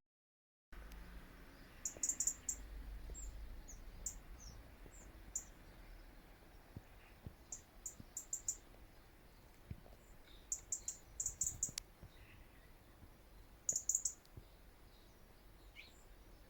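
Small birds calling: short, very high-pitched chirps in quick clusters every few seconds, over faint outdoor background noise.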